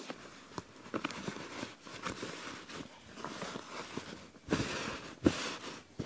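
Fleece cover rustling as it is pulled and smoothed over a Helinox Chair Zero, with light irregular clicks of the chair being handled; the handling is loudest around four and a half to five and a half seconds in, with one sharp click.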